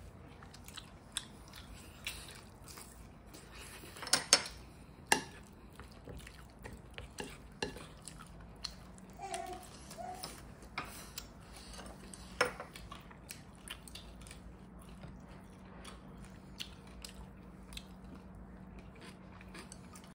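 A wooden spoon and chopsticks knocking and scraping against a ceramic bowl while rice and mapo tofu are mixed and eaten: scattered clinks, the loudest a few seconds in.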